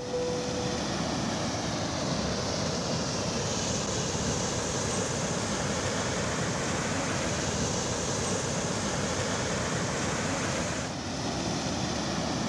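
Steady outdoor rushing noise of wind buffeting the microphone and muddy river water flowing, briefly dipping about eleven seconds in.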